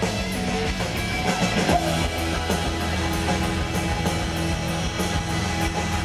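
Rock band playing live: electric guitar and drum kit over a steady beat, heard from within the crowd through a compact camera's microphone.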